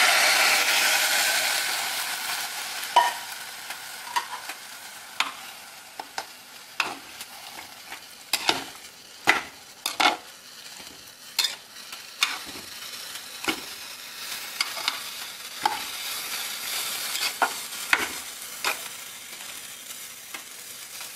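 Water poured into a hot pressure cooker of fried rice, dal and spinach, hissing loudly and dying away over the first two seconds. Then a metal spoon stirs the wet mix, clinking irregularly against the side of the pot.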